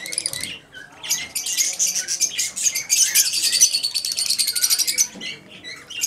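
A cage of lovebirds chattering with fast, shrill, overlapping chirps that pile up almost without a break. There is a short lull about half a second in, and the chirping thins out near the end.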